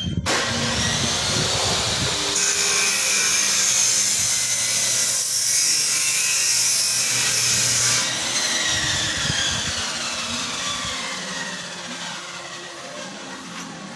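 A handheld electric cutting tool starts up suddenly and cuts with a loud, hissing whine for about eight seconds. It is then released and winds down slowly, its whine falling in pitch as it fades.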